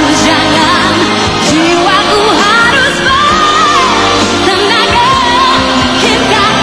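A woman singing a Malay pop song with full band accompaniment, holding long wavering notes, one of them about three seconds in.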